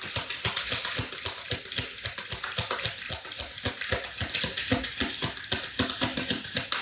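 Tarot cards being shuffled by hand: a steady run of quick card flicks and taps.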